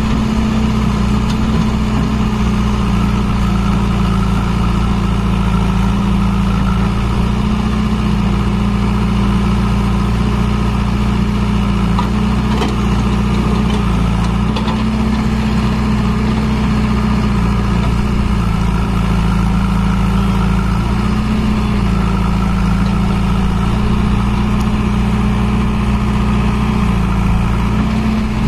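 A JCB 3DX backhoe loader's diesel engine runs steadily while the backhoe loads a tractor trolley. Its note swells briefly about five times, every five to six seconds, as the hydraulics take load during the dig-and-dump cycle.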